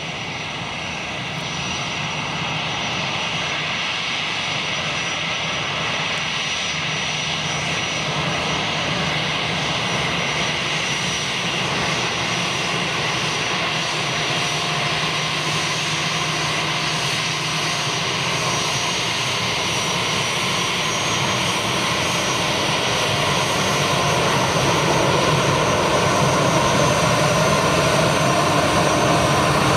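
Airbus A320-214's twin CFM56-5B turbofan engines at taxi power: a steady jet whine with several fixed tones, growing steadily louder as the airliner rolls closer.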